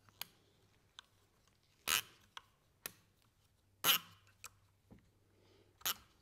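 A hex key turning and being reset on an M5 screw being hand-tightened into a plastic bracket: short metal clicks and scrapes, three louder ones about two seconds apart with lighter ticks between.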